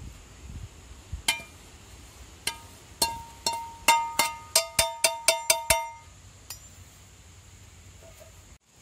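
Perforated metal spoon knocking against a metal pan, a run of sharp ringing clinks as roasted grated coconut and chillies are tapped out of the pan. The clinks are sparse at first, come fast for a couple of seconds in the middle, then stop.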